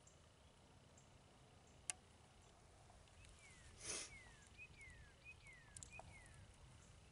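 Compound bow being handled as an arrow is loaded, giving one sharp click about two seconds in, a brief rush of noise about four seconds in, and a fainter click near six seconds. Behind it a bird sings a series of short falling whistles, about one every half second.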